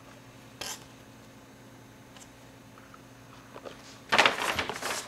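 Sheets of paper being handled and rustling: a short rustle about half a second in, then a loud crackling rustle about four seconds in as the drawing is moved. A faint low electrical hum lies underneath.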